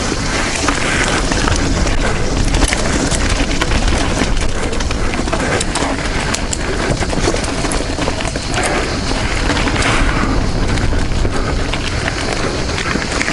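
Mountain bike descending a dirt trail at speed: steady wind rush on the action camera's microphone, with tyres rolling over dirt and roots and frequent clicks and knocks as the bike rattles over the rough ground.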